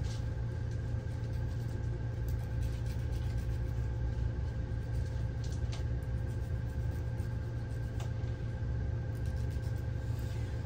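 A steady low mechanical hum with two faint steady tones above it, unchanging throughout, with a few faint scratches from a hand nail file on a dog's claws.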